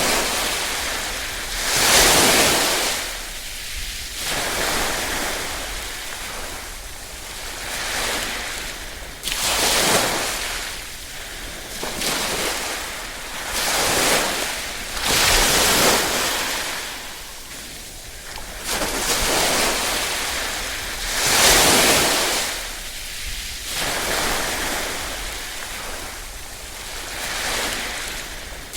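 Small waves lapping and washing in, swelling and falling back every two to four seconds, some washes louder than others.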